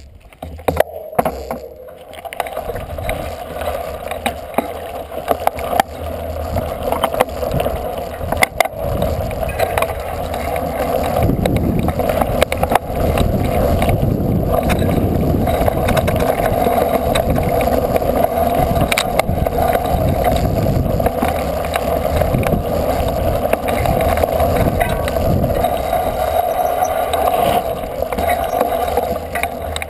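Steady wind rush and bumpy trail rumble on a helmet-mounted action camera riding along a dirt singletrack, with occasional sharp knocks from the rough ground. The noise builds over the first two seconds and then holds steady.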